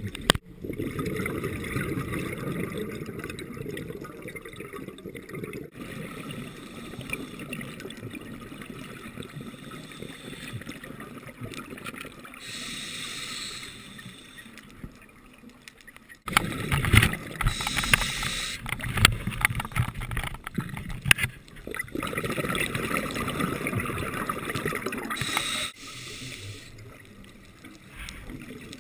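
Scuba breathing through a regulator heard underwater: short hissing inhalations alternate with longer stretches of exhaled bubbles. The bubbling is loudest a little past the middle.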